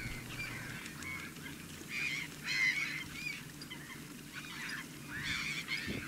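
Waterfowl calling: a series of short, high, nasal calls at uneven intervals, loudest about two and a half and five seconds in.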